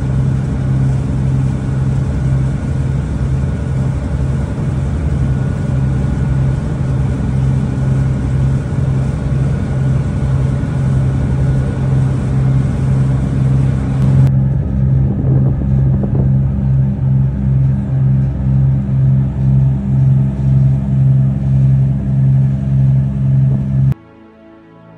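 A ferry's engine running steadily, with a deep, loud hum. In the second half it beats regularly, about twice a second.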